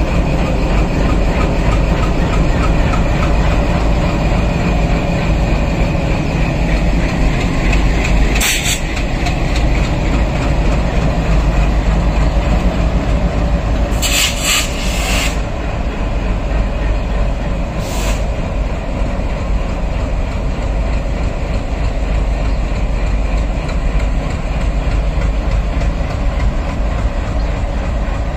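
Diesel locomotives of a train rolling slowly past with their engines running, a steady low rumble with wheels clicking on the rails. A few brief sharp noises come about a third of the way in, around the middle, and once more a little later.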